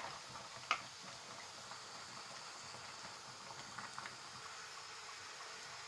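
Ground beef and onions sizzling steadily in a frying pan as a faint even hiss, with a few light clicks of a spoon against the pan near the start and about four seconds in.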